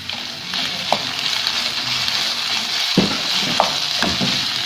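Tomato, onion and pepper pizza filling sizzling in an aluminium frying pan on a lit gas stove, with a steady hiss. A wooden spoon stirring in olives and tuna scrapes and knocks against the pan a few times, most plainly about three and four seconds in.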